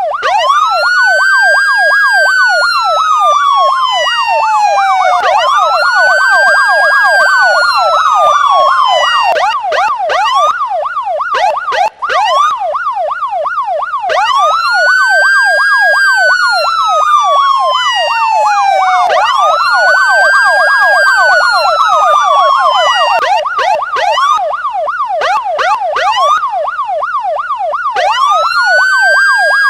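Electronic police siren sounding a slow wail that climbs quickly and then falls away over about four seconds, cycle after cycle, layered over a fast yelp that warbles up and down several times a second. The sound dips briefly about twelve seconds in.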